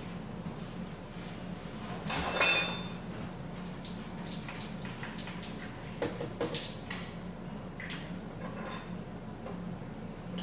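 A metal spoon clinking against a container while coloured sand is spooned into a bottle: one loud ringing clink about two and a half seconds in, then a few softer taps and scrapes.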